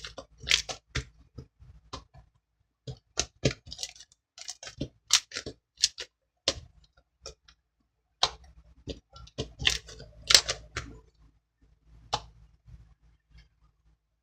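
Slime being squeezed and pressed by hand, giving irregular sharp clicks and little pops, often one or two a second, with short pauses between.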